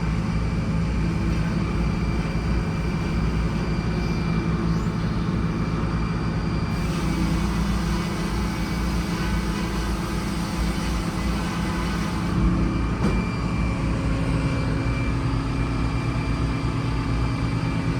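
Sawmill running under a steady engine drone, with the saw cutting through a ginkgo log: a hiss joins the drone about seven seconds in, and the engine note shifts with a short knock about twelve seconds in. The cut runs smoothly in the soft ginkgo wood, which sounds like butter.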